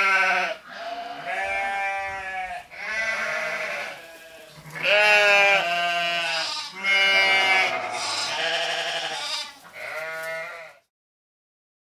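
Goats bleating: about eight long, wavering calls one after another, the loudest at the very start and about five seconds in.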